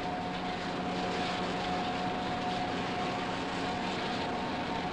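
High-pressure water hose spraying with a steady hiss over a constant machine hum, washing oil-bound road dirt off a bus body.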